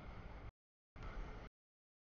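Double-stack container freight train rolling past: a low rumble with wheel and rail noise. The sound cuts out to dead silence twice, in half-second gaps, the sign of audio dropouts in the camera's stream.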